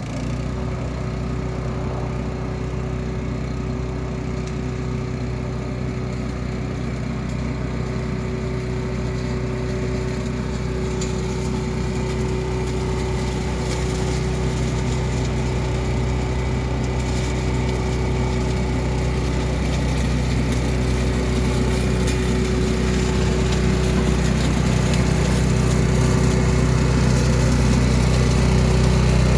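Walk-behind leaf vacuum's 8 hp Honda single-cylinder petrol engine running steadily with its fan drawing air, a steady whine over the engine note, growing gradually louder.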